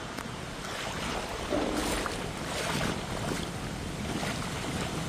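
Floodwater sloshing and splashing close to the microphone as it moves through the water, with wind on the microphone. A few sharper splashes come between about one and a half and three and a half seconds in.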